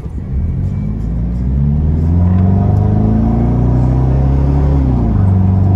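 Toyota Hilux 3.0 turbodiesel engine accelerating hard, heard from inside the cab. The revs climb steadily for about three seconds, then fall back near the end as the four-speed automatic shifts up, and the engine runs on under load.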